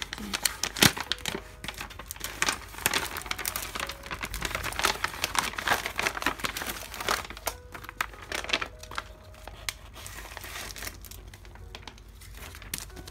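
Clear plastic packaging bag crinkling and crackling as hands open it and slide the contents out, with one loud sharp crack about a second in. The handling is busiest for the first seven seconds, then lighter and sparser.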